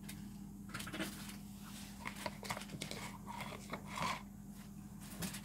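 Light rustling, scrapes and small knocks from things being handled and the camera being moved, over a steady low hum.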